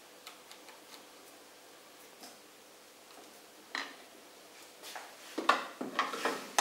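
Hand work on a sewing machine's handwheel with a screwdriver: faint metallic ticks, a single knock about four seconds in, then a louder cluster of metal clatters and knocks near the end as the tool and parts are handled.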